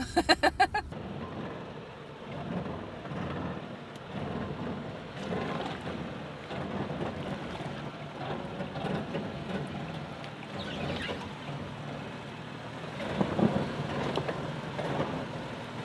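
A woman laughs briefly at the start. Then a Toyota 4Runner's V6 engine runs at low speed while its tyres churn and slosh through a mud bog, with a swell near the end.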